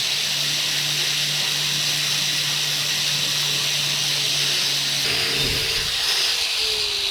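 Angle grinder with a wire brush wheel running against a rusty steel axe head, scrubbing off surface rust with a steady high hiss. Its low hum drops away about five seconds in and a tone falls slowly near the end.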